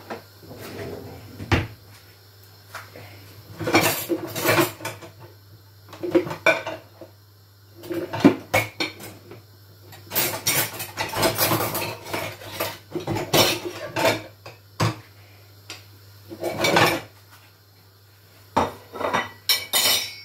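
Dishes, pots and cutlery clinking and clattering in irregular bursts, over a steady low hum.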